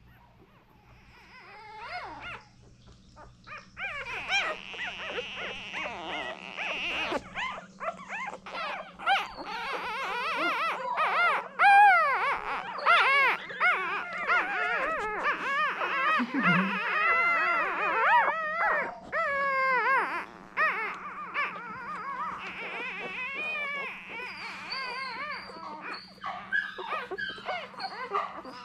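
Newborn English Springer Spaniel puppies squealing and whimpering: many high, wavering cries overlapping one another. The cries start faintly about two seconds in and swell into a dense chorus a couple of seconds later, over a faint steady low hum.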